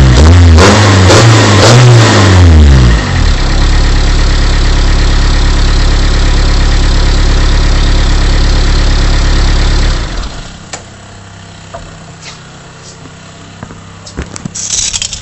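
Vehicle engine being revved in quick blips, its pitch rising and falling several times, then held at a steady speed for about seven seconds before it cuts off about ten seconds in, leaving a low background with a few faint clicks.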